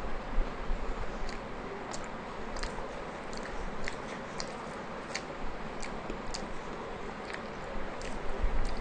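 A person chewing a mouthful of soft rumali roti and mutton tikia with the mouth closed, close to the microphone, with small wet clicks every half second or so. Louder low bumps come near the end as the roti is torn and dipped into the curry bowl by hand.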